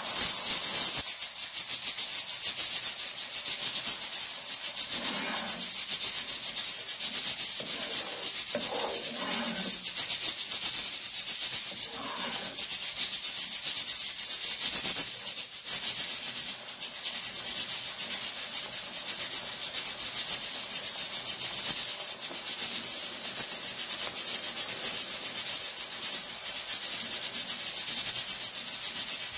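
A wet paste sizzling and bubbling in hot oil in a non-stick pan: a steady, dense, crackling hiss, with the scrape of a spatula as it is stirred.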